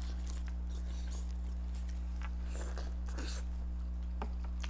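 Close-miked eating of boiled seafood: chewing, with scattered small clicks and squishes from handling shells. A steady electrical hum runs underneath and is the loudest thing.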